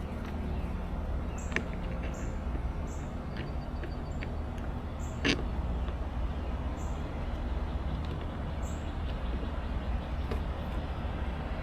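Steady low rumble with scattered light clicks and knocks, the loudest a sharp knock about five seconds in.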